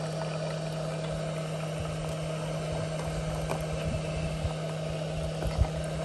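Single-serve drip coffee maker brewing: hot water gurgling and sputtering over a steady low hum, with a brief thump near the end.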